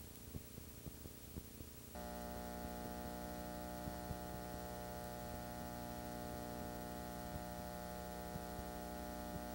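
Steady electrical mains hum on a videotape's audio track: a buzzy hum with many overtones that switches on abruptly about two seconds in and holds steady. Before it there is only a fainter low hum with scattered small clicks.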